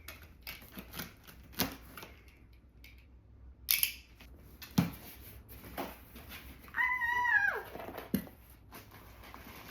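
A parcel being unpacked by hand: scattered rustles, crinkles and clicks of packaging. About seven seconds in, a pet gives one short high cry lasting under a second, falling in pitch at its end.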